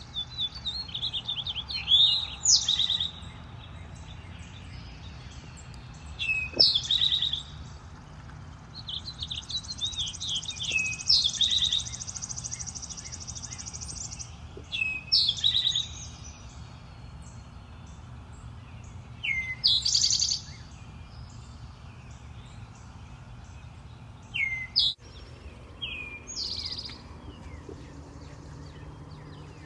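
Finches singing in short bouts every few seconds: rapid warbled phrases, some ending in a buzzy note, over a steady low background rumble.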